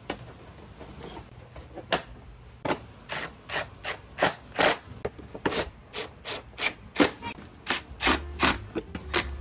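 Short sharp mechanical clicks, about three a second from about two seconds in, as a plastic side fairing is fastened onto a 2023 CFMOTO 300SS sport bike.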